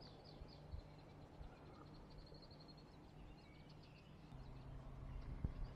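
Quiet outdoor ambience: a faint, rapid, high-pitched bird trill repeating a few times, over a low steady hum that grows slightly louder after about four seconds.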